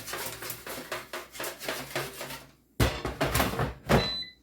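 Fries rattling in an air fryer basket as it is shaken, then several loud clunks of the basket drawer, and an electronic beep from the air fryer near the end.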